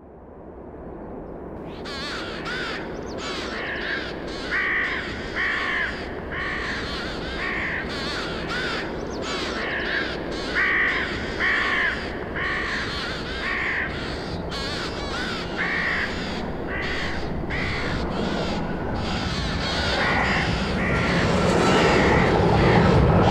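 A flock of crows cawing over and over above a steady rush of wind. About twenty seconds in, the noise of a jet airliner's engines swells as the plane approaches, with a steady whine on top.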